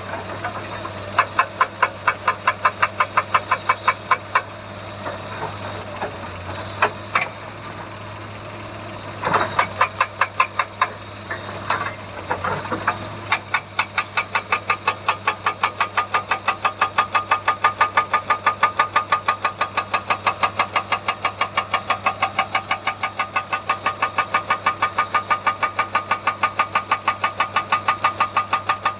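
Hydraulic rock breaker on a Komatsu excavator hammering in fast, even blows, about five a second, over the running engine. The hammering stops for several seconds near the start, with a few irregular knocks and cracks around the middle, then resumes steadily.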